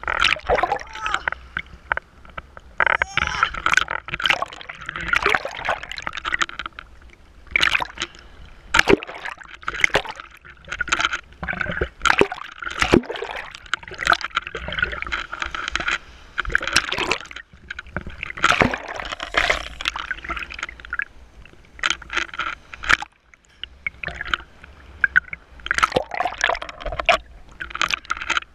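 Sea water splashing and gurgling against a waterproof camera bobbing in the waves, with many sharp, irregular splashes as the water washes over the lens.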